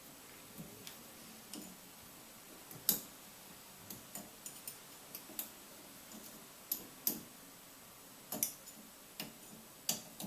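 Irregular clicks and taps of hard parts knocking together, about fifteen over ten seconds with the loudest about three seconds in, as a shower valve handle is fitted back on after a cartridge replacement.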